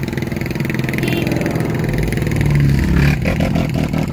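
Car engine and exhaust accelerating, building to its loudest about three seconds in, then easing off.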